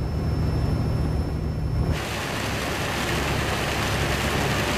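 Steady low engine drone inside a moving semi-truck's cab, which gives way about two seconds in to a dense hiss of heavy rain over the driving truck.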